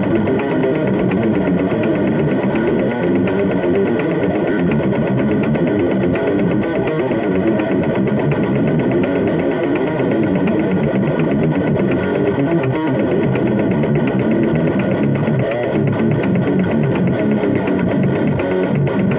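Distorted electric guitar playing a fast, unbroken brutal death metal riff, with rapid picking.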